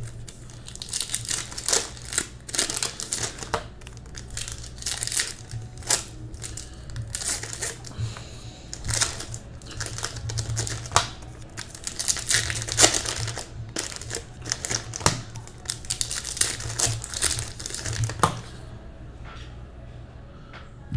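Trading-card pack wrappers crinkling and tearing as hobby packs are ripped open by hand. It is a quick, irregular crackle that thins out near the end, over a low steady hum.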